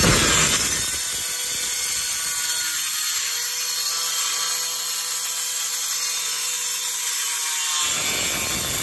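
Yamasu YMS-110R handheld electric tile cutter, a 1050 W machine with a 110 mm cutting disc, running at full speed in a straight cut through ceramic tile. It makes a steady, loud grinding whine, and the sound grows fuller near the end.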